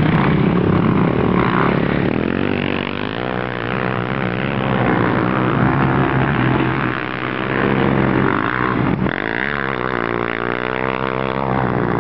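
Racing quad bike (ATV) engines revving hard, the pitch climbing and falling again and again as riders work the throttle around the track.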